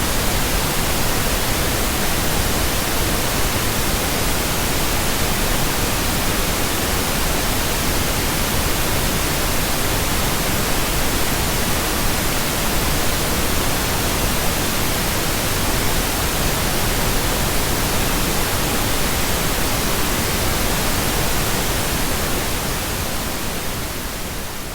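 Steady synthetic pink noise, an even hiss spread across all pitches with no tones or rhythm, beginning to fade out near the end.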